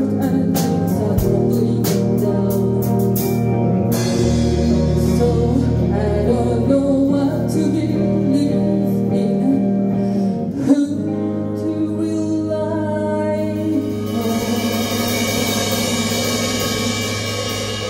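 Live rock band with a female lead singer: electric guitars, bass and drums under sung melody lines. Sharp drum hits mark the first few seconds, then the band holds chords, and from about fourteen seconds a crash cymbal rings on over them.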